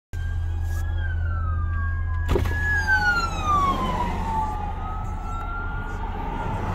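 Police sirens wailing, their pitch sliding slowly down and back up, over a steady low hum. A sharp click comes about two seconds in.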